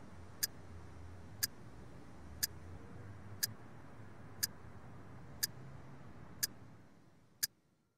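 Clock ticking steadily, one tick a second, over a faint low hum that fades away near the end.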